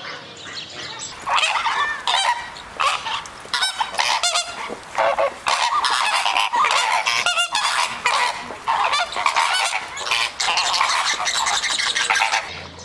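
A flock of flamingos honking, many goose-like calls overlapping densely, starting about a second in and running until just before the end.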